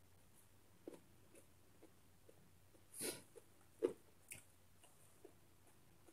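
Faint eating sounds: scattered soft clicks and taps from mouth and fingers as food is picked from a plastic plate and eaten by hand, with a short breathy rush about three seconds in and the sharpest tap about a second later.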